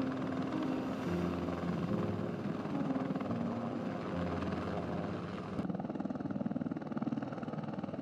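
Bell AH-1Z Viper attack helicopter at a low hover, its turbine engines whining steadily under a rapid beat of rotor blades. About five and a half seconds in, the sound changes to a duller, more strongly pulsing rotor beat.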